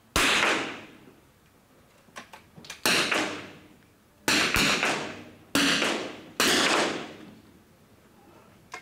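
Five .22 rimfire small-bore rifle shots fired one after another at uneven gaps of about one to two and a half seconds. Each is a sharp crack followed by about a second of echo in the shooting hall. A few faint clicks come just before the second shot.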